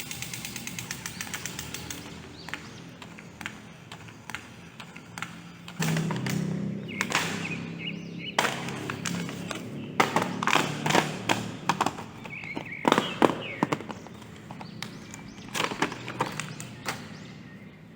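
Plastic toy figures and packaging being handled: irregular clicks, taps and knocks, thickest from about six seconds in, over faint background music.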